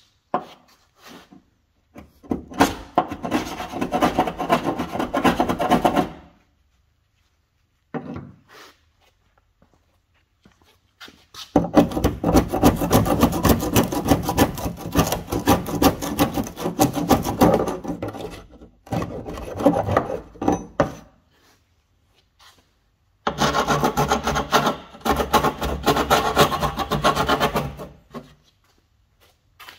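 Sanding of a car's body panels, an abrasive scraping that comes in four spells of a few seconds each with short pauses between.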